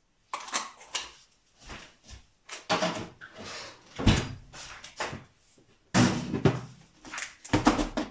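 Wooden kitchen wall cupboard door opened and shut, amid a string of knocks and clatters of jars and a plastic food container being handled; the loudest knocks come about four and six seconds in.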